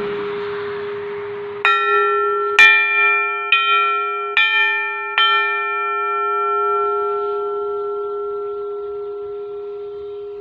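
A Thai kangsadan, a hanging metal bell-plate, is struck five times, about one a second, and each strike rings out. It is then left ringing with a long, resonant tone that slowly fades.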